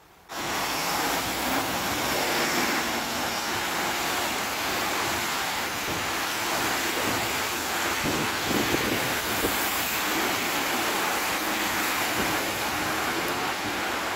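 A steady wash of water noise on a flooded street in the rain, with cars driving through the deep floodwater, tyres throwing up spray.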